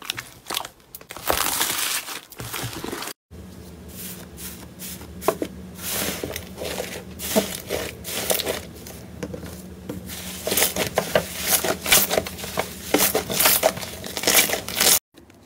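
Hands squishing slime. First, foam-bead slime (floam) crunches and crackles with a dense hiss. After a brief break, a thick red slime is squeezed and kneaded in a glass bowl, giving a run of sticky pops and clicks that grows louder from about ten seconds in.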